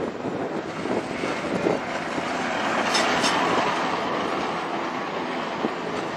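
Vintage SNCV coastal tram passing close by, its wheels rumbling on the rails. The sound swells to its loudest about halfway through, with a few sharp clicks from the wheels and rails, then eases slightly.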